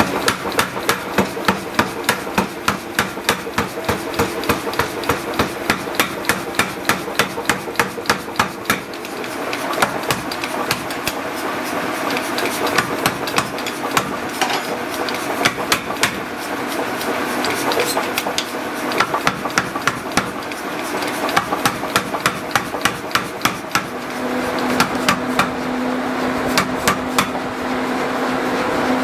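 Belt-driven mechanical power hammer striking a red-hot steel bar in quick, even blows, about three a second, in runs broken by short pauses as the bar is repositioned.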